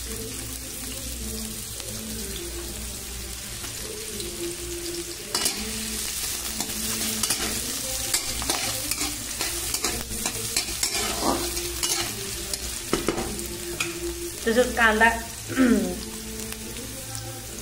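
Chopped onion sizzling in hot oil in a kadhai, with a spatula scraping and stirring it around the pan. The sizzle gets louder about five seconds in.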